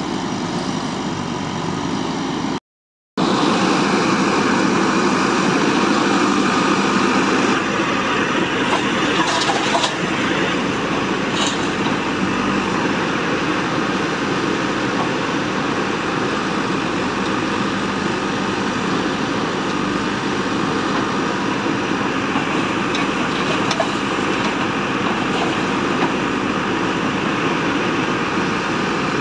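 JCB backhoe loader's diesel engine running steadily as the backhoe arm digs and loads soil. The sound drops out briefly about three seconds in.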